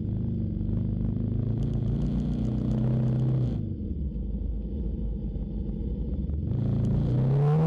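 Kawasaki Z250SL's single-cylinder engine running under way. Its pitch wanders with the throttle and climbs near the end as it revs up, over low road and wind noise.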